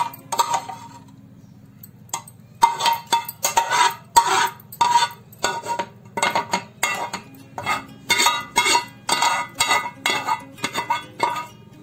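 Steel spoon scraping thick chutney out of a metal pan into a glass bowl: a quick run of scrapes and clinks of spoon on metal with a ringing note. There is a short pause about a second in.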